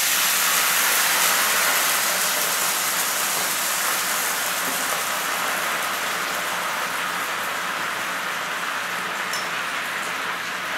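Chicken stock hitting a hot frying pan, sizzling and bubbling hard as it deglazes the pan. The hiss is loudest at first and eases slightly over the seconds.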